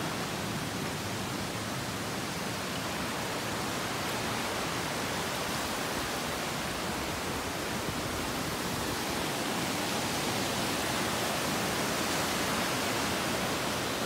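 Steady rush of a mountain stream running over rocks and small cascades.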